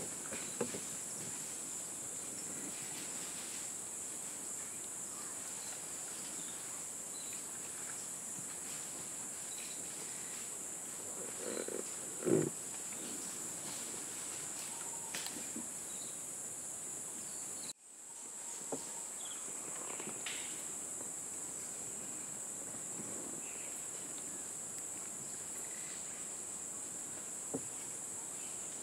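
Rainforest ambience: a steady, high-pitched insect chorus, with scattered faint rustles and knocks and one louder knock about twelve seconds in. The sound briefly cuts out a little past halfway.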